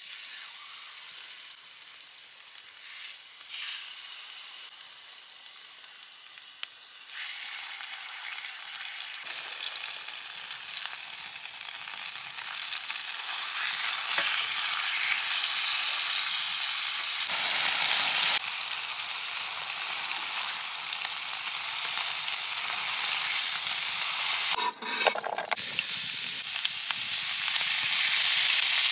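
Meat frying in a black frying pan, a steady sizzle that grows louder as it goes on. Near the end, after a short break, chopped onions sizzle in the pan, louder still.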